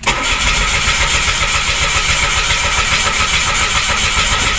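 Mitsubishi Mirage hatchback's starter motor cranking the engine steadily and rhythmically without it catching. This is a crank-but-no-start, which the mechanic traces to the fuel pump.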